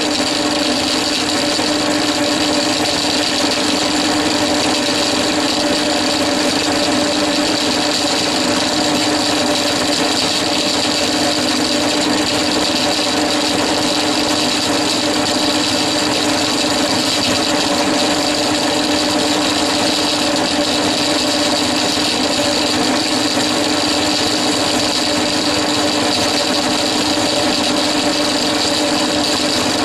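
Standard drill press running steadily with a homemade single-point cutter boring out a cylinder bore in a VW Beetle 1200 crankcase: an even machine hum with a high whine over the cutting noise.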